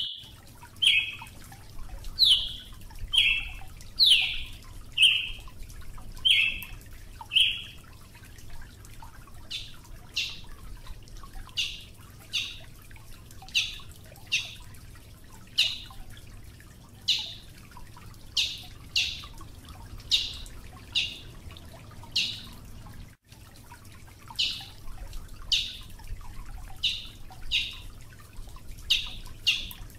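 Brazilian tanager (Ramphocelus bresilius) giving a long series of short, sharp call notes, roughly one to two a second, with a brief gap about two-thirds of the way through.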